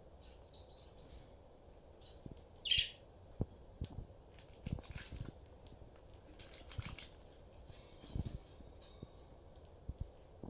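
Quaker parrot bathing, flapping its wet wings and splashing in short bursts of rustle and spatter, with small clicks between. One short, loud high-pitched chirp about three seconds in.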